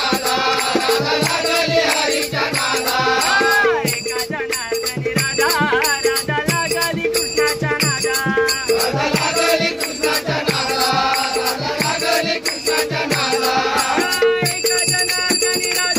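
Marathi gavlan folk song: a melody over a steady beat of rattling percussion.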